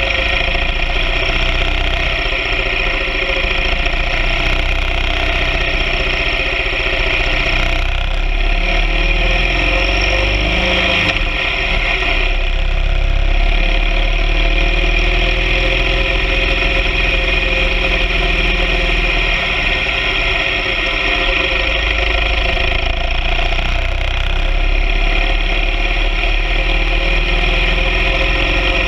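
A BMW R 1200 GS Adventure sidecar rig's boxer-twin engine running steadily while riding, with a low rumble beneath it. The engine note rises and falls a little about halfway through.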